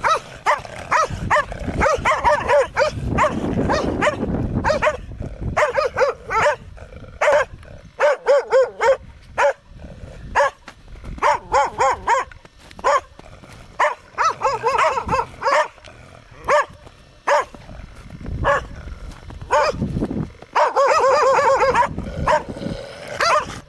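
Large shaggy dogs barking aggressively at close range as they charge, in quick volleys of several barks a second broken by short pauses.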